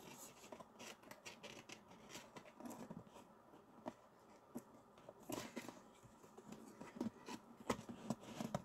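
Faint handling noises close to the microphone: scattered light clicks and rustles, coming more often in the second half.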